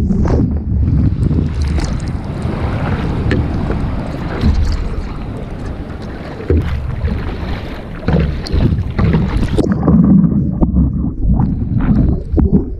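Wind buffeting the microphone over sloshing and splashing water around a stand-up paddleboard in the surf, with short knocks and splashes throughout.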